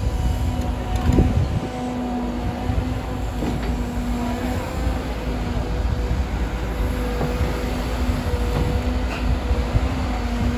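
CAT 325 hydraulic excavator working: a heavy diesel rumble under a steady hydraulic whine that dips and comes back, with a couple of knocks from the digging, the loudest about a second in.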